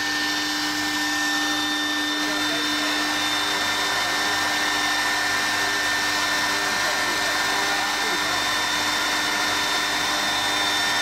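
CNC column milling machine's spindle running at full speed with a steady high whine, joined about three seconds in by an on-off hum as the axes begin feeding slowly at the start of the program.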